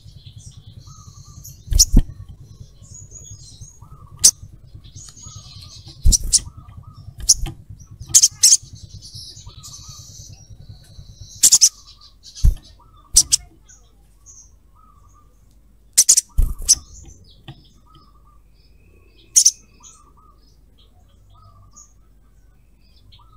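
Olive-backed sunbird calling: about a dozen loud, sharp, very short chips, some in quick pairs, spaced irregularly, with bursts of thin, high twittering between them in the first half.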